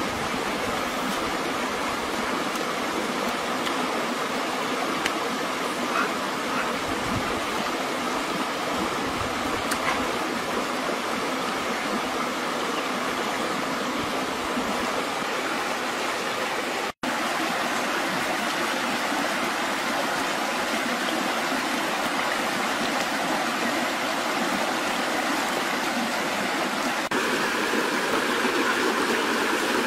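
Rushing stream flowing over rocks: a steady, even rush of water. It cuts out for an instant about halfway through and changes tone slightly near the end.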